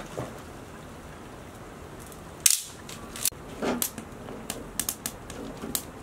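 Irregular sharp clicks and taps over a steady hiss. The loudest comes about two and a half seconds in, and they come thicker and quicker in the last couple of seconds.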